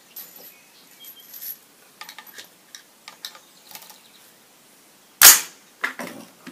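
Single shot from a 6.5 Grendel AR-15 rifle with a 16-inch fluted barrel, about five seconds in, preceded by faint clicks of handling the rifle. A fainter sharp crack follows about half a second after the shot.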